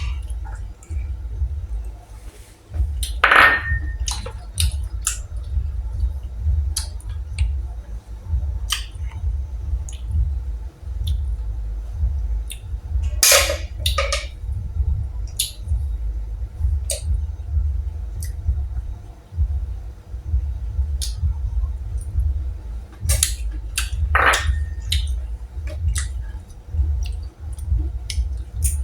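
Close-up eating of boiled golden apple snails: scattered small clicks of snail shells and a few louder sucking noises about ten seconds apart, over a steady low rumble.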